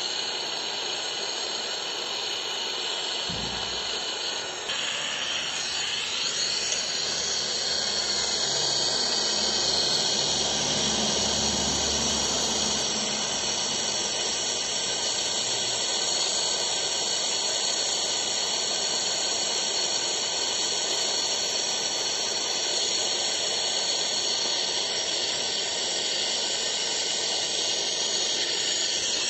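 Gas welding torch flame hissing steadily while the pipes from two refrigerator compressors are joined into one line.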